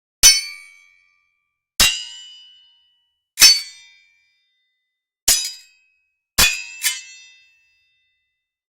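Metallic clink sound effect: six sharp strikes, each ringing briefly with a high tone. The first five come about every one and a half to two seconds, and the sixth follows the fifth within half a second.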